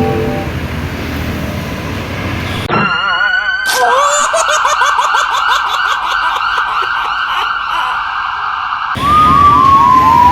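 Electronic police-style siren: a rapid warbling yelp from about three seconds in, then near the end a run of short falling chirps that step down in pitch.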